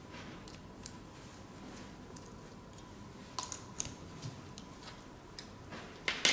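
Small metallic clicks and ticks from a hex key working the screws on a fibre laser cutting head, irregular and spaced out, a few sharper ones about halfway through. Near the end, two louder clacks as the steel key is set down on the table, the last one ringing briefly.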